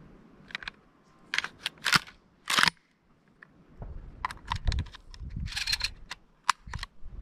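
Irregular crunching clicks and crackles of a person moving on dry dirt and grass, with a low rumble of handling or wind from about 4 to 6 seconds in.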